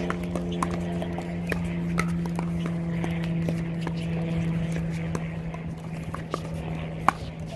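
Pickleball rally: sharp hollow pops of paddles striking a plastic pickleball, at an uneven pace of roughly one a second. A steady low hum and distant voices run underneath.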